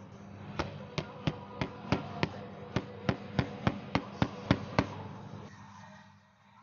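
A quick run of about fourteen sharp clicks, roughly three a second, from the taut cloth of a wooden embroidery hoop being handled and stitched. The clicks stop about a second before the end, leaving a low hum.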